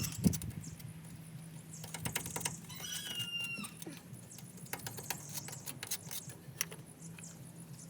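Scattered light clicks and taps, with one high, slightly falling animal call about three seconds in, over a steady low hum.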